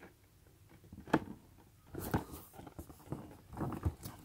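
Cardboard retail box handled and turned over in the hands: a sharp tap about a second in, another about two seconds in, then a short run of taps and scuffs near the end.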